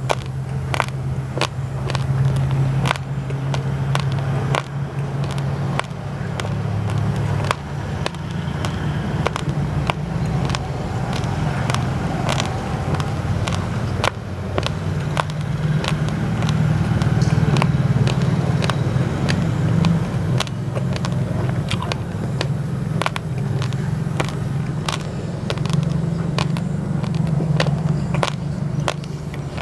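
Raw rice grains, basmati mixed with glutinous rice, crunching between the teeth as they are chewed: many sharp, irregular cracks, several a second, over a steady low hum.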